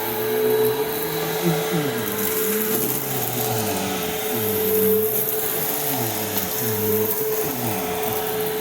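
A 2003 Simplicity Symmetry upright vacuum cleaner running: a steady motor whine over lower tones that keep sliding up and down.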